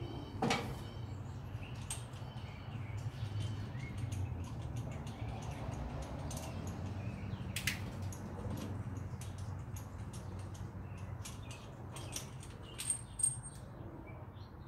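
Socket ratchet clicking in short, irregular runs as a spark plug is backed out of the engine, with scattered small metal clicks and taps over a steady low hum.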